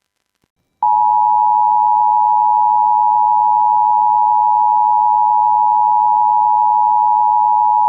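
Weather-radio warning alarm tone: one loud, steady, single-pitched tone near 1 kHz. It starts suddenly about a second in and holds unchanged, announcing that a warning message follows.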